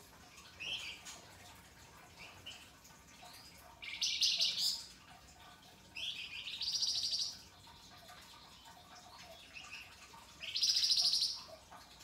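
Caged flamboyan songbird singing. Soft short notes lead into three loud, harsh, rapid rattling phrases, each about a second long.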